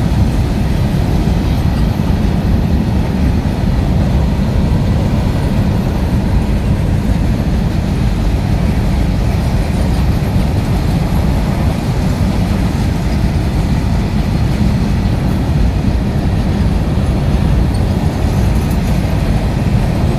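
Empty freight train of covered goods wagons rolling past at close range: a loud, steady rumble of steel wheels on the rails.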